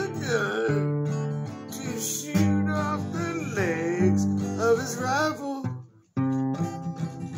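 Steel-string acoustic guitar strummed and picked in a steady accompaniment. A wordless, wavering voice glides up and down over it in three stretches. The guitar stops for a moment about six seconds in, then comes back.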